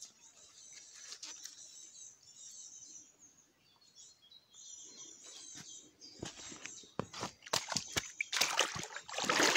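Small birds chirping in the first half, then splashing and rustling at the water's edge as a crayfish-trap rope is handled, loudest near the end.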